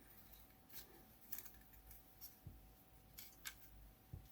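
Faint, scattered light clicks and rubs of small plastic and electronic parts being handled while a multimeter's front panel is worked apart, over a faint steady whine.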